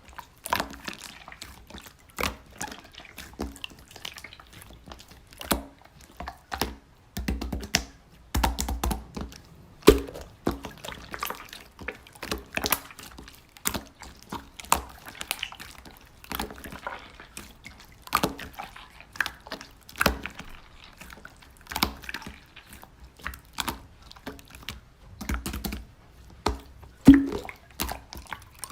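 Hands playing with slime, pressing and poking it to make a string of irregular wet clicks and squelches.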